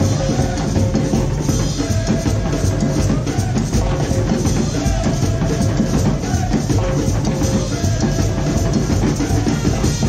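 Carnival parade band music: steady driving drums with a short melodic phrase repeating every second and a half or so.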